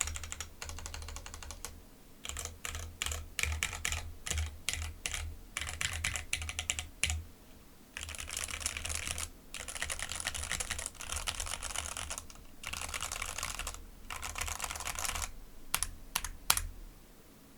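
Mechanical keyboard with JWK Lilac linear switches, doubleshot PBT keycaps and an aluminium case and plate, typed on: separate keystrokes on the modifier keys at first. From about seven seconds in, the keys are mashed in fast dense runs lasting a second or two each, ending with a few single strokes.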